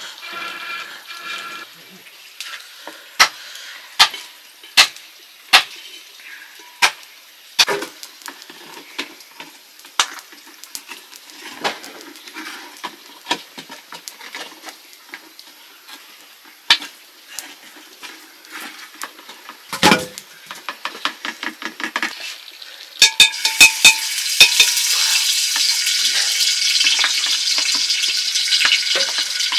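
Metal cooking utensils knocking and scraping on a pot in sharp, irregular clicks. About three-quarters of the way through, a loud steady hiss starts.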